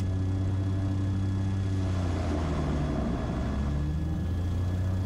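Cessna 340's twin piston engines running steadily at run-up power during a magneto check, with the right magneto switched off. The drone wavers and shifts slightly in pitch about two seconds in.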